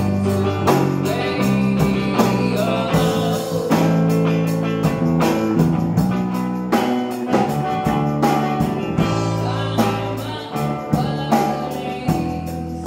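A live rock band playing: a woman singing lead over electric guitar, bass guitar and drums, with drum and cymbal hits keeping a steady beat.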